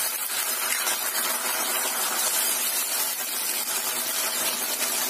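A watery cornstarch slurry sizzling steadily in a pan of hot oil and browned garlic as it cooks and thickens into a sauce.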